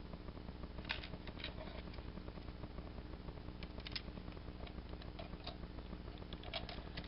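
Faint scattered clicks and rubbing of a hard plastic toy vehicle, the DX Gokai Trailer, being handled and turned over in the hands, over a steady low hum.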